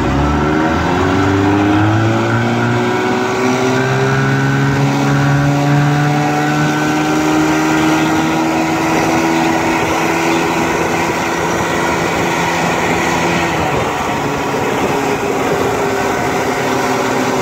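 1967 Evinrude Fastwin 18 hp two-cylinder two-stroke outboard motor opening up under throttle in forward gear. Its revs climb quickly over the first couple of seconds and then keep rising slowly as the boat picks up speed. It then runs steadily at high speed, easing off slightly near the end, with water and wind noise underneath.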